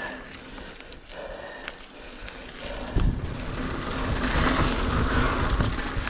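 Mountain bike rolling fast down a dirt trail: tyre noise and small clicks and rattles from the bike, with wind buffeting the microphone. The rumble gets much louder about three seconds in as the bike picks up speed on a straight stretch.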